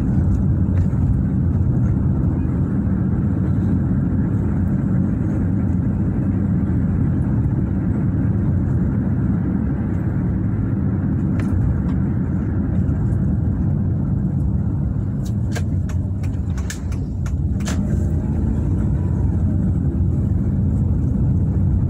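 Steady low rumble of a car's engine and tyres heard from inside the cabin while driving, with a few faint clicks and a brief lull about three-quarters of the way through.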